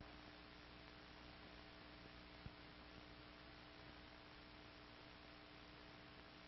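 Near silence: the faint steady hiss and hum of an old film soundtrack, with a single click about two and a half seconds in.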